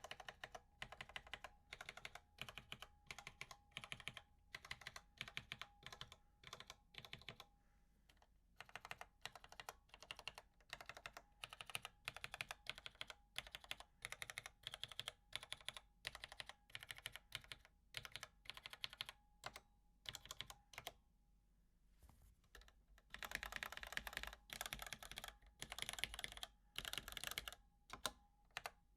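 Typing on a vintage Allen Bradley 1784-T50A keyboard with Cherry MX Black linear switches mounted on a steel plate: a continuous patter of keystrokes. They stop for about two seconds a little after the twenty-second mark, then resume as a faster, louder run.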